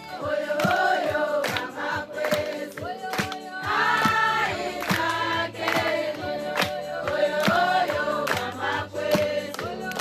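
A congregation singing together as a choir, mostly women's voices, with hand claps keeping a steady beat.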